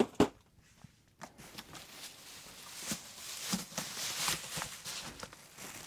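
Cardboard model-kit boxes being handled: two sharp knocks right at the start, then a stretch of scraping and rustling with small clicks as the boxes are shifted about.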